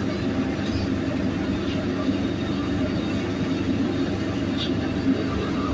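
Steady low roar of a restaurant wok range, with a few faint clinks of a metal ladle against the wok.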